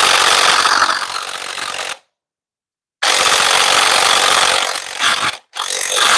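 Impact wrench hammering on an E12 bolt on a Detroit DT12 transmission's control module, in bursts: one of about two seconds, a one-second pause, another of about two and a half seconds, then short blips near the end. The bolt is stuck and will not turn, which the mechanic puts down to Loctite in its threads.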